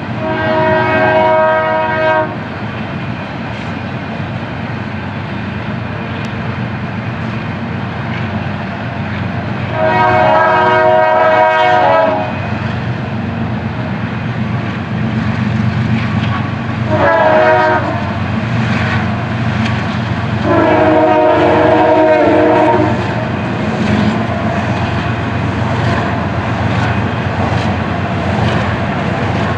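Diesel freight locomotive air horn sounding the grade-crossing signal: long, long, short, long. Under it runs the steady rumble and clatter of a passing double-stack intermodal train.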